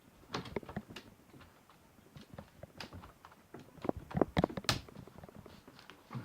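Plastic clicks and knocks of a laptop being handled as its removable battery is fitted back in, with a quick run of louder clicks about four seconds in.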